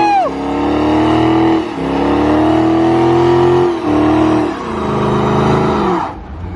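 Dodge Challenger SRT's HEMI V8 held at high revs during a burnout, its spinning rear tyres adding a noisy hiss. The revs dip briefly about two and four seconds in, then fall away and cut off near the end.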